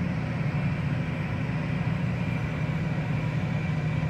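Airbus A320 jet engines idling as the airliner taxis in on the apron: a steady low rumble with a faint whine above it.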